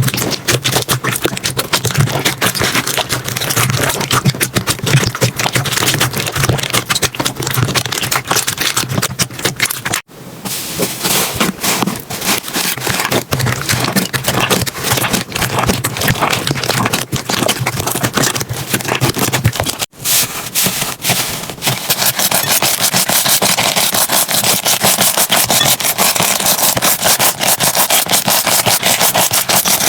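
Slime being squeezed and pressed, giving a dense run of small crackles and clicks. It comes as three separate clips, with sharp cuts about ten and twenty seconds in.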